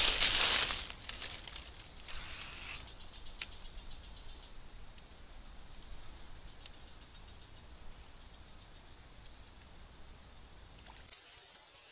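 Steady high-pitched insect drone, like a cricket or cicada chorus. A loud burst of rustling noise fills the first second, and a couple of faint clicks come later.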